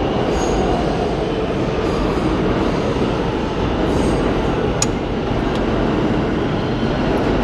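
Subway train running through the station: a loud, steady rumble of wheels on track.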